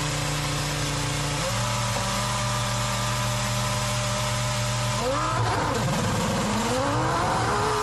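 Formula One Ferrari V10 engine held at a steady note while the car sits for its pit stop, the pitch stepping down about a second and a half in. About five seconds in it revs up sharply as the car pulls away, drops briefly at a gear change, then climbs again.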